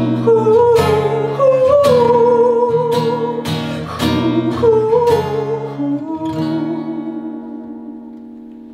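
Acoustic guitar strumming chords under a sung vocal line of long held notes with vibrato. About six seconds in the singing stops and the last guitar chord is left to ring and fade away.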